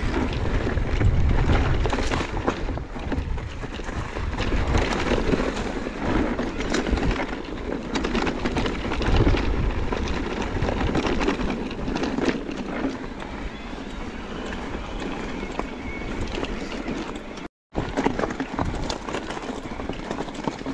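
Mondraker Crafty electric mountain bike riding down a dry, rocky trail: tyres crunching over gravel and loose stones, the bike rattling and knocking over the bumps, and wind rumbling on the microphone. The sound cuts out for a split second about three-quarters of the way through.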